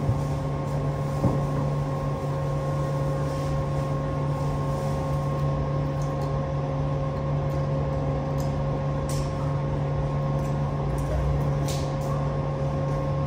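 Steady low machine hum with a couple of faint steady whine tones above it, unchanging throughout. A few faint light ticks or rustles come in the second half.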